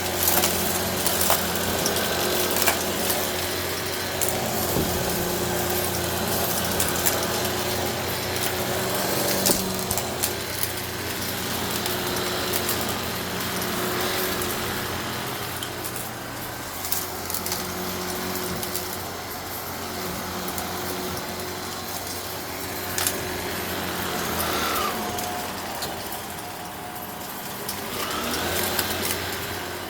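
Eureka Innova NEU700 upright vacuum cleaner running with its brushroll on carpet, picking up aquarium gravel that crackles and clicks sharply as the stones are drawn into the nozzle. The motor's pitch dips and rises briefly near the end.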